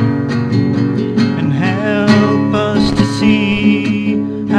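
Song accompaniment with strummed acoustic guitar over sustained chords, and a wavering high note about three seconds in.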